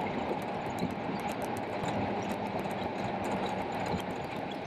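Steady road and tyre noise heard inside a vehicle driving on a wet highway in rain, with many light, quick ticks.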